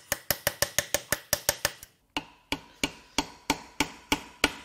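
Hand-hammer blows on a chisel driving a pressed-in cap out of an N14 engine's aluminium bedplate to reach the main-cap bolts under it: sharp metallic strikes, each with a short ring. Quick irregular taps in the first two seconds, a short pause, then steadier blows about three a second.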